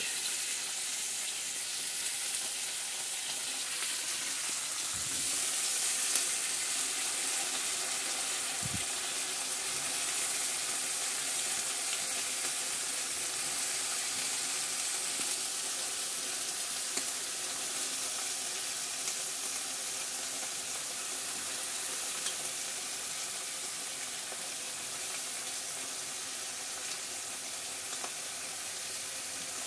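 Chopped vegetables and green chillies frying in hot oil in a kadhai, a steady sizzle, with a couple of soft knocks in the first ten seconds.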